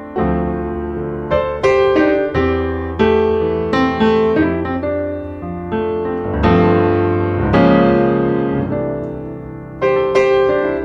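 Piano music accompanying the film: chords and single notes struck one after another, each fading away, with a longer held chord in the middle.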